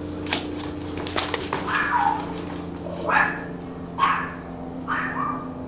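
A dog barking, four short barks spaced about a second apart starting a little under two seconds in, after a few sharp clicks or knocks.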